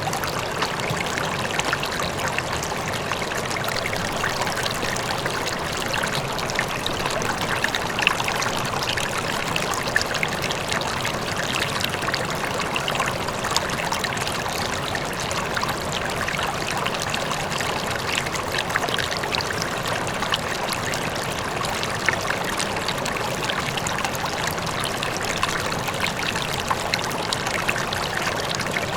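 River water flowing and splashing steadily, with a faint waterfall in the distance.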